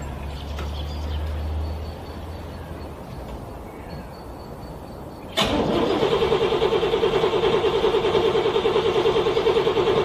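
Cold car engine being cranked by its starter motor. After a quieter pause with a low rumble at first, the starter kicks in suddenly about five seconds in and cranks steadily at about four beats a second without the engine catching.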